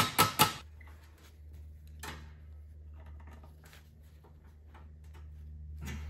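Quick sharp taps on the steel frame of a third-generation Dodge Ram seat, about five a second, stopping about half a second in. Then faint clicks and rustles of hands working the frame over a steady low hum.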